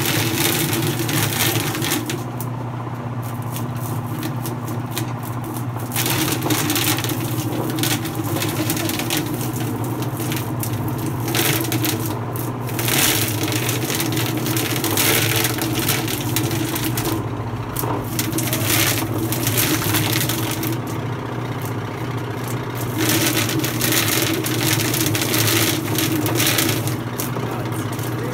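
Roller-type chicken plucking machine running: a steady motor hum, with long stretches of loud rattling, slapping crackle as the spinning rubber fingers strip the feathers from a chicken held against the roller.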